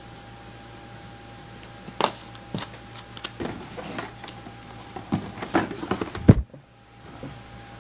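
Clicks, taps and rustling of objects being handled, with the sharpest knock just after six seconds in; a faint steady hum underneath.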